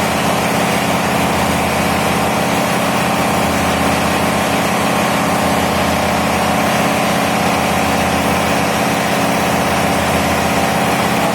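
Diesel engine running steadily at idle, an even, unbroken drone.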